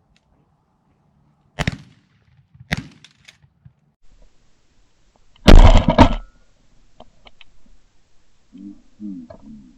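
Shotgun shots at incoming pigeons: two sharp cracks about a second apart, then a much louder, longer blast about five and a half seconds in.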